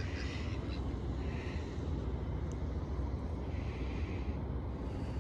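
A steady low outdoor rumble, with a few faint duck calls from mallards and domestic ducks near the start, about a second and a half in, and around four seconds.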